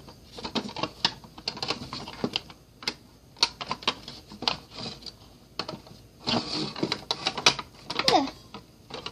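Irregular small clicks and taps as the removable shelves of a Barbie toy fridge are handled and pushed back into the door, busiest a little after six seconds in.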